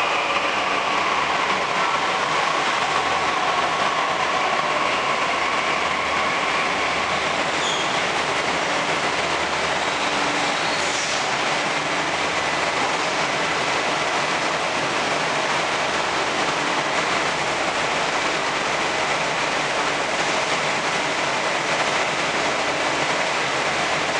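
Delhi Metro train pulling into an underground station and slowing to a stop, with a faint whine that drops slightly in pitch during the first few seconds and a couple of brief high squeaks, over the steady rumble and hiss of the train and platform.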